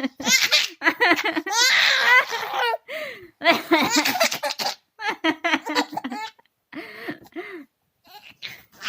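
A baby laughing in repeated bursts, with a long high squealing laugh about two seconds in, then shorter, fainter laughs toward the end.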